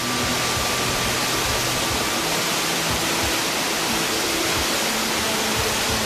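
Water of a waterfall rushing steadily, an even wash of noise that holds at the same level throughout.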